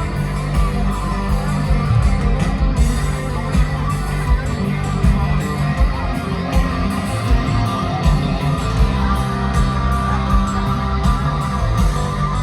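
Live band playing loud country-rock music with no singing: guitar over a steady drum beat.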